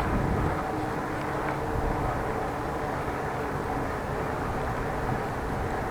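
Steady road-traffic noise heard from a moving bicycle: an even rush of passing motor vehicles and tyres on the road, with a faint steady hum.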